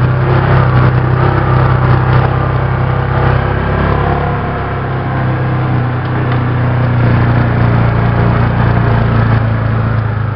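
ATV engine running steadily, loud and close. It eases off briefly around the middle and then picks up again.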